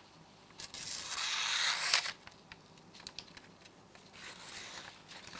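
Thin catalog paper being sliced by a stainless folding-knife blade: one hissing cut lasting about a second, starting just under a second in, followed by light paper crinkles and small ticks.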